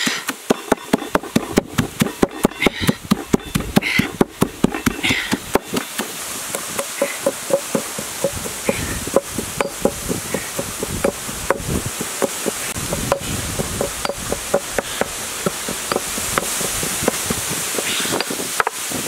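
Stone mortar and pestle pounding red chilies and garlic: a rapid, steady run of knocks, about three strikes a second, each with a short ringing note. A steady hiss grows louder toward the end.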